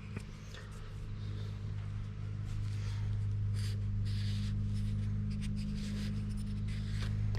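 Steady low hum, with faint rubbing and light clicks of small carburetor parts being handled as the float bowl is checked and cleaned.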